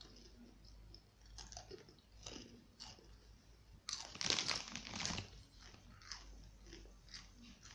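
Close-up chewing of crunchy, spicy rolled corn chips (fake Takis), heard as scattered short crunches. About four seconds in there is a louder second-long stretch of rustling from the plastic chip bag as a hand reaches into it.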